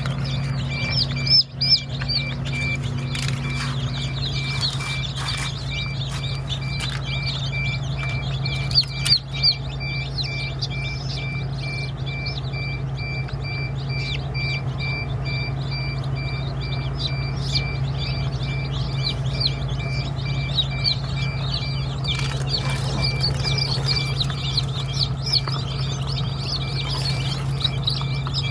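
Many newly hatched chicks peeping continuously, over a steady low hum and a faint repeating high beep. A couple of brief knocks come about a second in and about nine seconds in.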